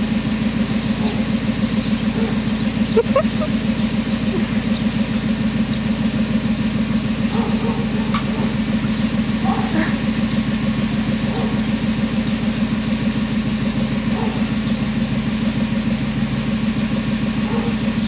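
Engine idling steadily with a low, even hum. A few short, faint bird chirps come through now and then.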